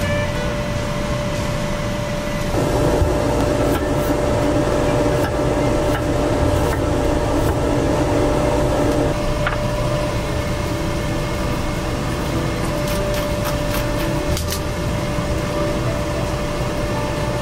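Philips air fryer's fan motor running with a steady whine and rushing air, the rushing louder for the first several seconds. A few light clicks near the end.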